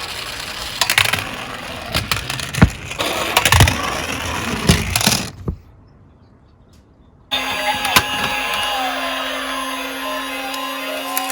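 Tomica die-cast toy cars rattling and clicking down a toy slope, with sharp knocks as they hit and land. After a short silent break, a steady hum with a siren tone sliding slowly down and back up.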